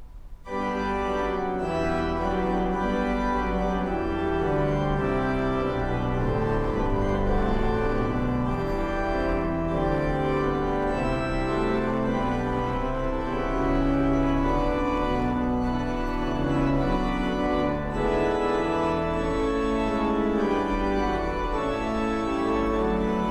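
Organ playing a postlude after the benediction: full sustained chords over a held bass, starting about half a second in.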